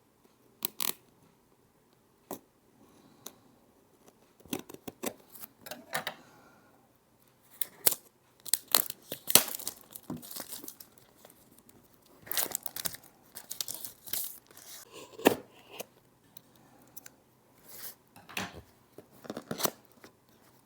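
Product packaging being handled and opened by hand: irregular tearing and crinkling of paper and plastic, with scattered sharp clicks and knocks.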